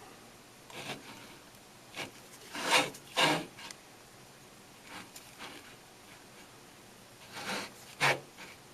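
A jeweler's hand tool scraping and rubbing against the metal prongs of a ring as they are pushed down toward the stone, in a series of short, uneven strokes. The loudest strokes come a little under three seconds in and again near the end.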